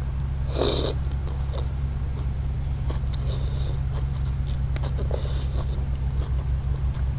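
A person eating noodle soup: a few short slurps about a second in, near the middle and again later, with chewing and faint clicks of utensils, all over a steady low hum.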